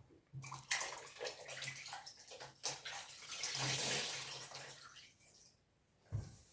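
Water splashing and trickling as a wet cleaning rag is worked and wrung out, with small scattered knocks, and a longer splash about three and a half seconds in.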